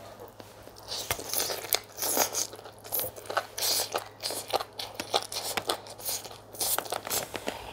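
Close-miked eating of chicken pepper soup and fufu: many quick wet chewing, smacking and crunching sounds, starting about a second in.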